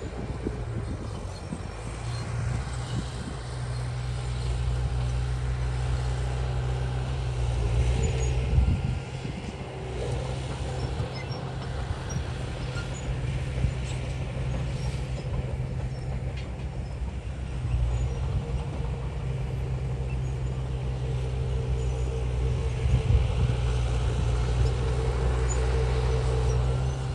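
Heavy earthmoving machine's diesel engine running steadily under load, with its note shifting about 9 seconds in and again about 18 seconds in, and a few short knocks.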